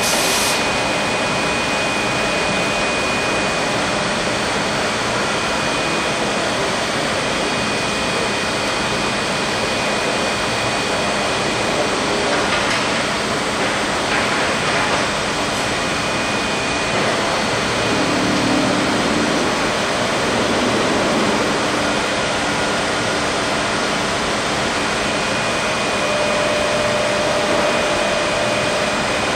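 Suction unit of a minidozer's suction hose attachment running steadily: an even rush of air drawn through the hose with a thin high whine over it.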